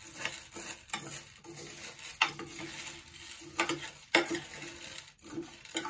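Metal spoon stirring uncooked elbow macaroni coated in melted butter in a glass baking dish. The dry pasta rattles and the spoon scrapes and clinks against the glass in irregular strokes.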